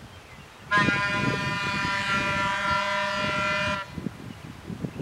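Horn of a Sacramento Northern electric interurban car sounding one steady blast of about three seconds, starting just under a second in and cutting off sharply, over a low rumble.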